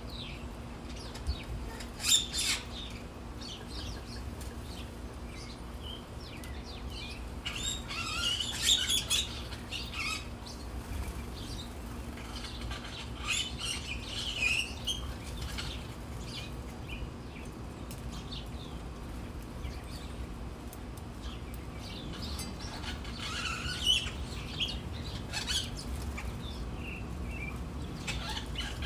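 Small birds bathing: flurries of wing-fluttering and splashing with quick high chirps, coming in bursts several times between quieter stretches.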